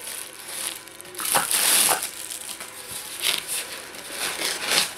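Broken polystyrene foam packing and cardboard scraping and breaking as a hand digs a resin ornament out of a box. The handling comes in irregular scrapes, loudest about a second and a half in, with more near the end.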